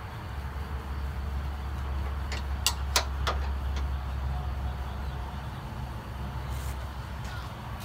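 A few sharp metallic clicks and taps, bunched between about two and a half and three and a half seconds in, as bolts and the flat metal brackets of an LED light bar mount are handled and fastened by hand. They sit over a steady low rumble.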